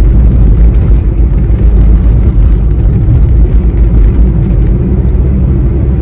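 Car driving along a road, heard from inside the cabin: a steady, loud low rumble of engine and road noise.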